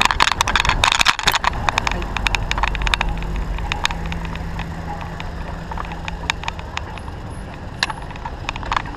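A bicycle ridden over a rough city street, with rattling clicks and knocks from the bike and its wire front basket over a steady low road and wind rumble. The clicks are thickest in the first couple of seconds. A car's steady engine hum runs along for a few seconds in the middle.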